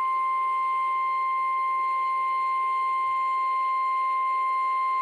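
NOAA Weather Radio's 1050 Hz warning alarm tone: a single steady, unbroken beep over light radio hiss. It signals that a warning message is about to be broadcast.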